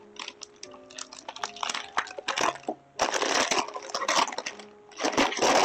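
Crinkling and rustling of a flower bouquet's wrapping being handled, loudest in two stretches in the second half, over soft background music.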